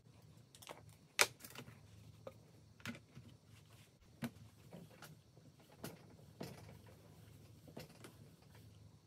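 Scattered light clicks and taps of a stamping platform and stamp being handled and pressed onto card, the sharpest about a second in.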